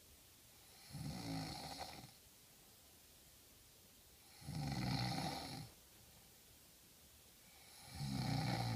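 Loud snoring: three long snores at a slow, even rhythm, about three and a half seconds apart, with quiet between them.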